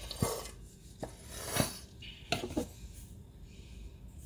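A handful of sharp clinks and knocks of kitchen items being handled on the counter, spaced irregularly: a plastic oil bottle and a glass measuring cup being set down and picked up.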